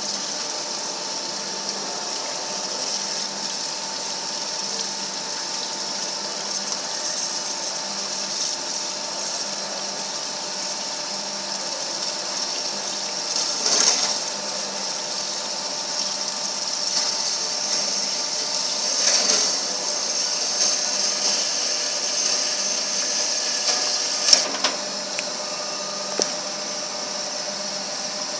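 TMCO band saw running steadily: a constant motor hum and whir with a high hiss, with a few louder knocks and swells about halfway through and twice more later on.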